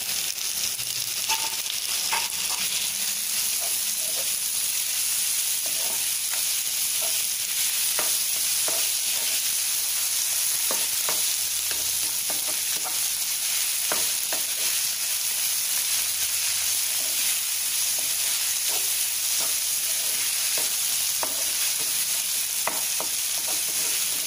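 Onions, green chillies and freshly added chopped tomato sizzling in oil in a nonstick frying pan, with a steady hiss. A spatula scrapes and taps against the pan in short irregular strokes as the mixture is stirred.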